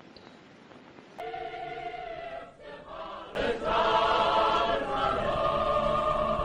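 Choir singing long held chords. It comes in suddenly about a second in over faint hiss, then grows suddenly louder and fuller about three and a half seconds in.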